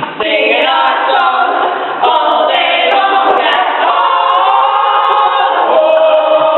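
A group of voices singing a cappella, a chant-like tune with long held notes in the second half.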